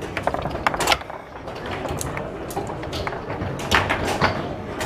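Foosball match play: the ball being struck by the plastic players and knocking off the table, with rods clacking, heard as sharp knocks at irregular intervals. The loudest cluster comes about three and a half to four seconds in.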